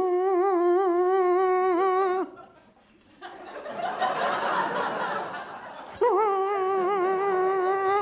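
A man imitating a mosquito's whine with his voice: a steady, nasal, slightly wavering hum held for about two seconds. Audience laughter follows, then the hum comes again for another two seconds near the end.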